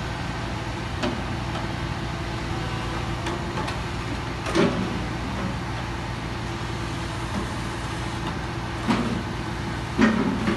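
Diesel engine of a grab lorry running steadily to power its crane, with a few metallic clanks and knocks from the crane and its clamshell grab as it swings and bites into the rubble; the loudest come about halfway through and near the end.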